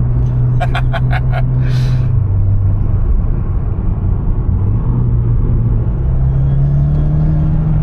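Mitsubishi Lancer Evolution's turbocharged four-cylinder engine running under way, heard inside the cabin with road noise. Its hum drops about two seconds in, then slowly rises in pitch as the car picks up speed.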